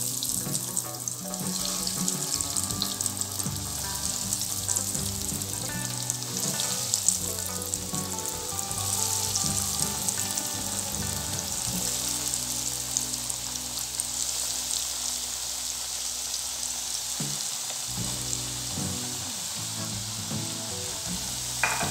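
Rusk-crumbed mutton cutlets deep-frying in well-heated oil in a shallow nonstick frying pan: a steady, dense sizzle and bubbling as the cutlets go in one after another and fry.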